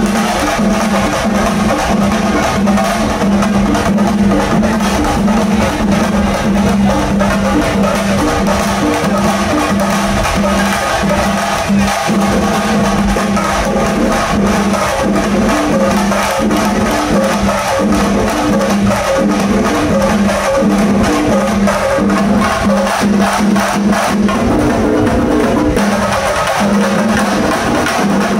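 Shinkari melam: a troupe of chenda drums played in a fast, dense, driving rhythm, rapid stick strokes over a ringing drum tone.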